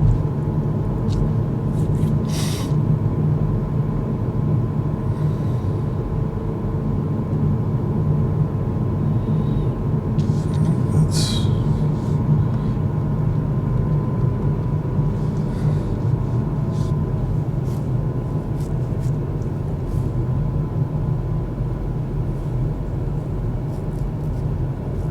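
Kia EV6 cabin noise while driving: a steady low rumble of tyres on the road with a faint steady whine over it, which the driver takes for a noise in the transmission. Two short hisses, about two and a half and eleven seconds in.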